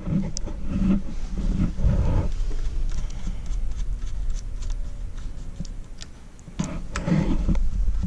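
Light, irregular clicks and taps of hands and a small tool working on a riflescope's ring caps and screws, over a low steady rumble of handling.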